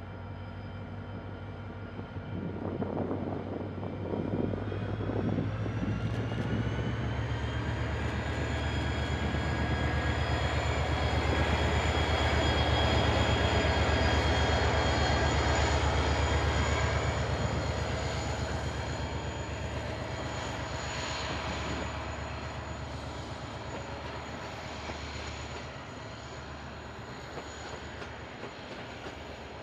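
Train locomotive working, with a low rumble and a whine that rises in pitch about five seconds in and then holds steady. It grows louder toward the middle and fades away toward the end as the train passes.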